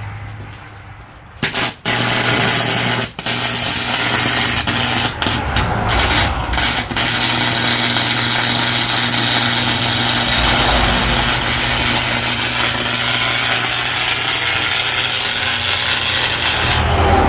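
Electric arc welder laying a bead on thick steel gears at a high setting. The arc strikes about a second and a half in, breaks off briefly a few times, then runs unbroken until just before the end, over a low steady hum.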